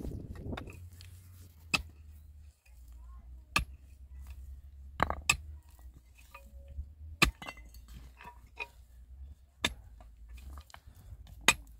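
Pickaxe striking stony ground while a pit is dug: sharp clinks about every two seconds, as the blade hits soil and stones.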